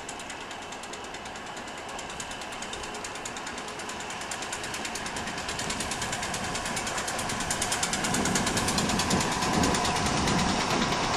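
Electric multiple unit train approaching and passing, growing steadily louder, with a rapid, even ticking and a low rumble building in the last few seconds.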